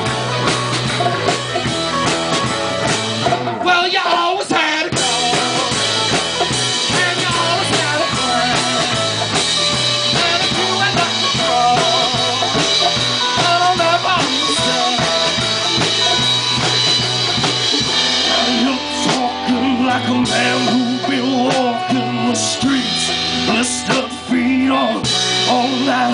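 Live rock band playing: drum kit and guitars, loud and continuous, with a brief drop-out of the low end about four seconds in and a change in the bass around eighteen seconds.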